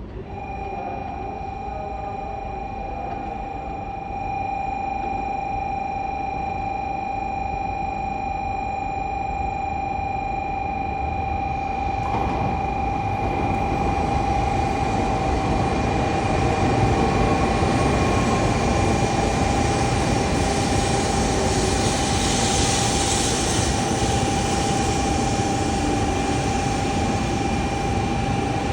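N700A Shinkansen train pulling into the station, a rushing rumble of wheels and air growing louder from about twelve seconds in and staying strong to the end. A steady high-pitched tone sounds throughout.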